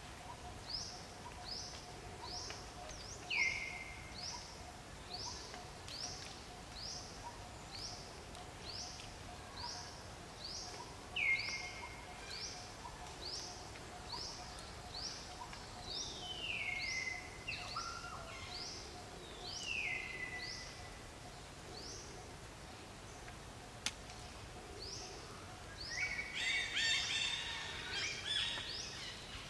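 Forest birdsong: a bird repeats a short, high falling note about one and a half times a second, with a few louder downward-sliding calls from another bird, over a faint steady hum. Near the end comes a burst of busier chattering calls.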